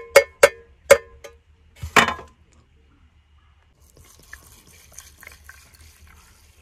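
A metal container is knocked several times against a rice cooker's metal inner pan, sharp ringing taps in the first second and one heavier knock about two seconds in, as the last rice is shaken out. From about four seconds in comes a faint trickle of water poured from a plastic bottle onto the dry rice in the pan.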